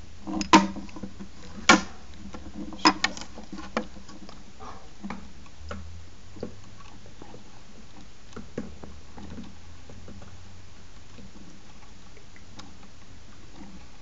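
Sharp clicks and knocks of hard hermit crab shells being handled in the tank: several loud ones in the first four seconds, including a quick cluster of three near the third second, then scattered faint ticks.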